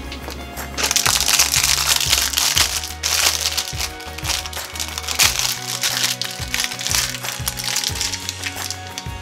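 A foil blind-bag wrapper crinkling and tearing as it is pulled open by hand, starting about a second in, over background music with steady low notes.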